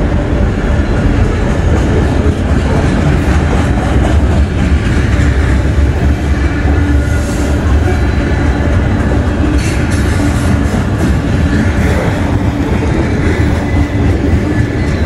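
CSX freight train's cars (covered hoppers, boxcars, autoracks) rolling past at a crossing: a loud, steady rumble of steel wheels on the rails.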